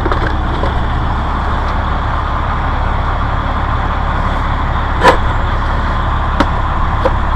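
Heavy engine of concrete-work machinery running steadily in the background, a low rumble. Two sharp knocks cut through it, about five seconds in and again a second or so later.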